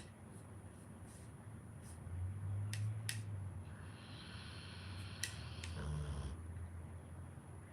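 Pit bull snoring in its sleep: a low snoring breath about two seconds in, then a longer, hissier breath a little later.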